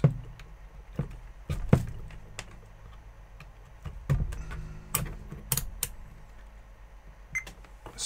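Scattered light clicks and knocks from small parts and tools being handled on a workbench, a few sharper ones about a second and a half in and around five seconds, over a steady low hum.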